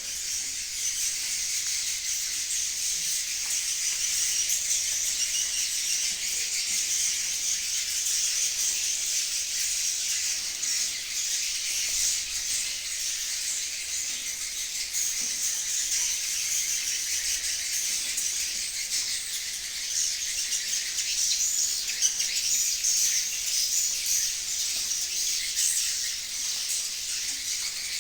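A flock of swiftlets chirping inside a swiftlet nesting house: a dense, unbroken high-pitched twittering chorus.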